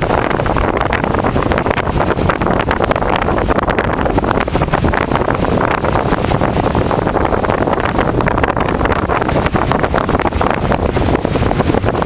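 Strong tropical-storm wind buffeting the microphone: a loud, steady rushing noise crackling with rapid gusty pops.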